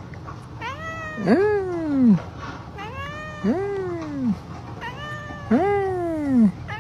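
Tabby cat yowling: three long, drawn-out meows a second or two apart, each rising and then falling in pitch.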